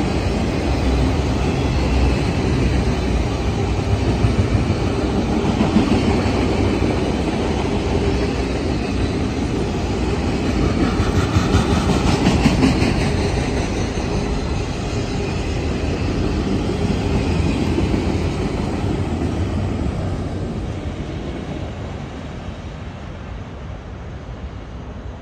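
CSX freight train of autorack cars rolling past, its steel wheels running steadily on the rails. The sound fades over the last few seconds as the end of the train moves away.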